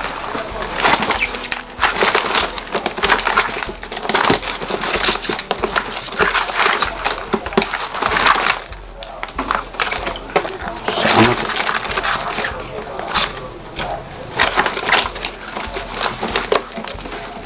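Stiff plastic mesh crate lid being pulled and worked by hand: irregular crackling, scraping and clicking of the plastic. A steady high cricket trill runs underneath.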